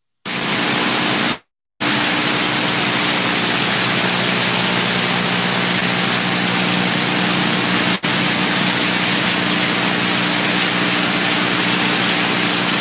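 Steady, loud static hiss on the audio feed with a faint low hum beneath it. The sound drops out to silence twice in the first two seconds, and dips briefly about eight seconds in.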